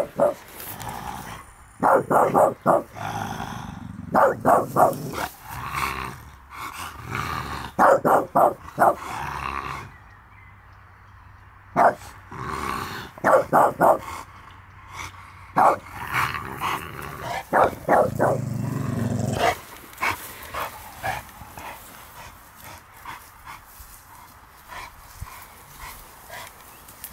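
Bulldogs barking in quick runs of several barks every couple of seconds. The barking stops about twenty seconds in.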